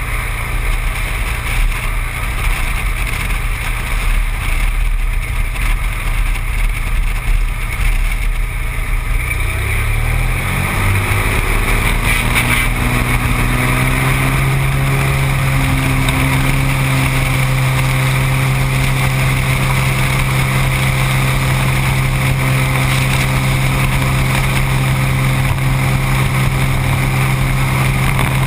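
Seaplane's engine and propeller running low, then about ten seconds in rising in pitch as power comes up, settling into a steady loud drone, as for a takeoff run from the water.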